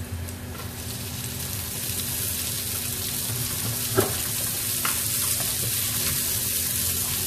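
Sliced onions and browned garlic sizzling in hot oil in a wok and being stirred with a wooden spatula; the sizzle builds a little once the onions go in. One sharp knock about four seconds in.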